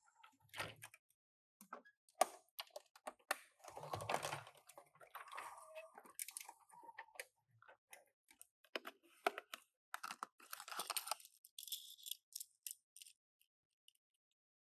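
Small toy cars and their plastic packaging being handled: irregular sharp clicks and taps, a short rustle of packaging about four seconds in and a few brief squeaks, then it falls quiet near the end.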